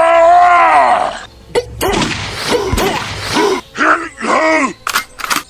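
A man's voice gives one long drawn-out cry at first, then a run of about six short cries that each rise and fall in pitch, with a few sharp clicks in between.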